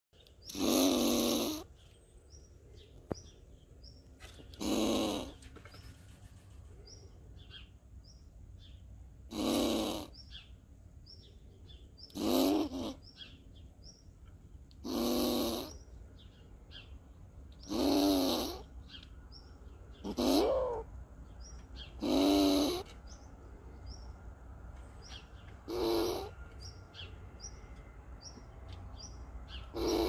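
Eurasian red squirrel giving a harsh, hoarse call about nine times, each call under a second long and spaced two to four seconds apart: seemingly agitated defensive calls.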